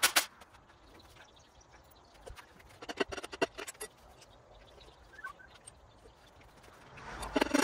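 Metal parts and tools clinking and knocking against a bare Nissan VQ37VHR engine block as it is taken apart. The clicks come in a few short clusters: at the start, around three seconds in, and near the end.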